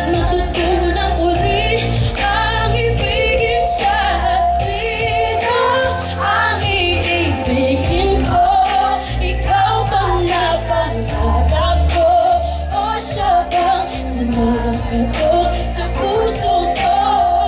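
A female vocalist singing live into a handheld microphone over backing music with a steady bass, holding notes with a wavering vibrato.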